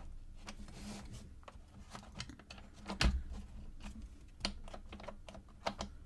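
Small wooden pieces of an Esc Welt Space Box laser-cut plywood puzzle box clicking and tapping as they are moved by hand, with a louder knock about three seconds in.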